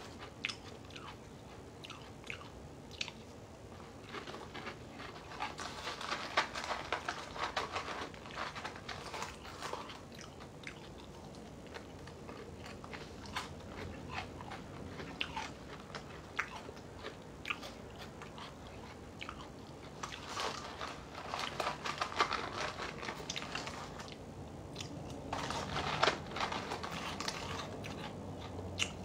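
Dry Lucky Charms cereal being chewed and crunched, in several crackly bouts with short pauses between.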